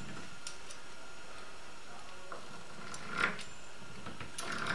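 Wavy metal pastry wheels rolled and pressed through dough on a countertop: faint clicking and scraping, with a short louder knock about three seconds in.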